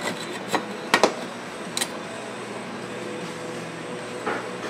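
Sharp knocks and clicks of a Husqvarna 254XP chainsaw's two crankcase halves being handled and fitted together over the crankshaft. The loudest is a double knock about a second in, with a few single clicks around it, over a steady background hum.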